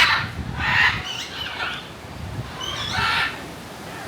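Birds calling: two loud, harsh calls, one about half a second in and one about three seconds in, with smaller high chirps between them.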